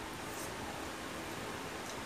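Steady background hiss with two faint, short ticks of eating, about half a second in and near the end.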